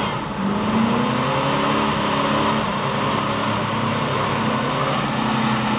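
A car engine held at high revs during a burnout, with the tyres spinning against the pavement. The revs dip briefly right at the start, then climb back and hold with a slight waver.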